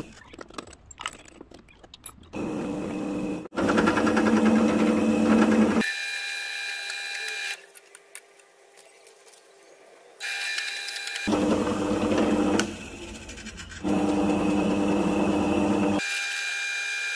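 Bench drill press motor running steadily while its bit cuts holes through a metal plate, heard in several short takes that start and stop abruptly, with quieter stretches near the start and in the middle.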